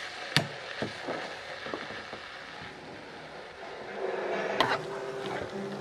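Kitchen clatter: a frying pan knocking and clicking against a glass-top stove as it is handled, with a sharp click about half a second in, a few lighter knocks, and another sharp click near the end. A faint steady hum comes in about four seconds in.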